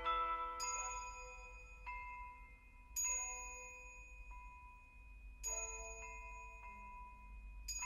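Background music: slow, bell-like struck notes, about six of them spaced a second or more apart, each left to ring out and fade.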